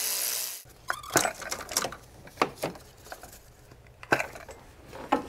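An electric ratchet runs out a 7 mm ignition-coil bolt and stops about half a second in. Scattered light metallic clicks and clinks follow as the loosened bolts and coils are handled.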